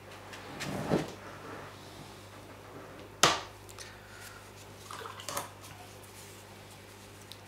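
A painting brush being worked in a pot of water: a sloshing swell about a second in, a single sharp knock just after three seconds, and a few smaller taps around five seconds.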